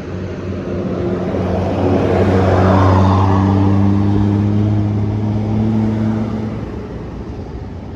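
A bus driving past with a steady low engine drone, loudest about three seconds in, then fading away after about six and a half seconds.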